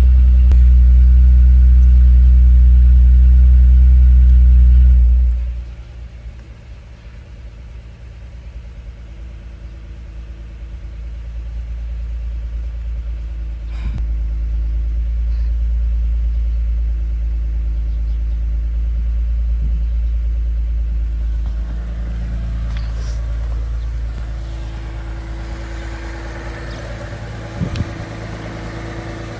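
Lexus IS350's 3.5-litre V6 (2GR-FKS) engine running: a loud low drone that drops off suddenly about five seconds in, then a steadier, quieter low rumble that slowly grows louder.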